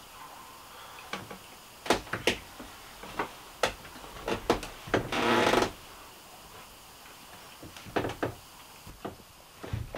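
Small knocks and clicks of mugs and food being handled on a wooden table, scattered a few at a time, with a short louder noisy sound of about two-thirds of a second a little past the halfway point.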